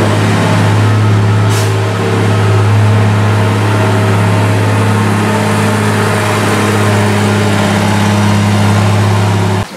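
Engine of a 13-tonne Wagner underground mining loader running steadily and loudly as the machine drives. It cuts off suddenly near the end.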